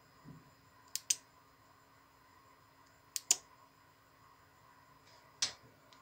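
Small switch clicking: three sharp clicks about two seconds apart, the first two each a quick double click.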